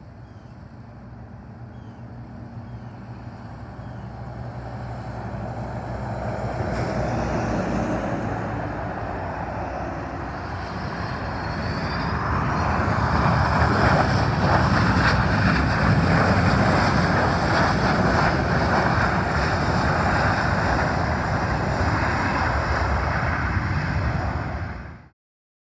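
Jet aircraft engines: a rumbling roar that grows steadily louder for about fourteen seconds, with a whine rising in pitch partway through. It then stays loud until it cuts off suddenly near the end.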